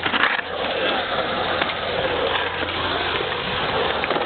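Skateboard trucks grinding along the coping of a concrete bowl for a moment near the start, then the wheels rolling on the concrete.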